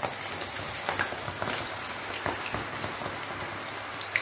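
Raw jackfruit slices just dropped into hot coconut oil, deep-frying with a dense steady sizzle and many scattered pops and crackles.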